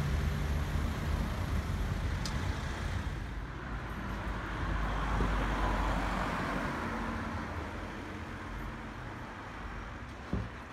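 Road traffic: a motor vehicle's engine hum fades away, then another vehicle passes by, its noise swelling about five seconds in and dying away.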